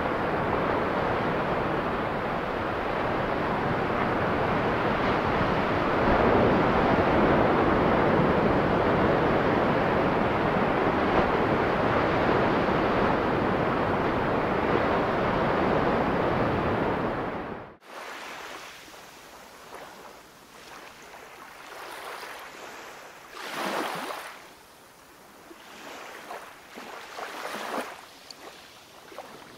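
Loud, steady rush of ocean surf that cuts off abruptly about 18 seconds in. It gives way to quieter water lapping, with soft swells rising and falling every few seconds.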